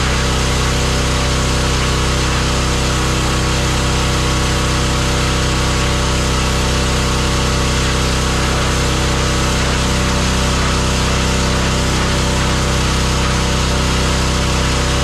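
Pressure washer running steadily at an unchanging pitch, a constant mechanical drone under a hiss.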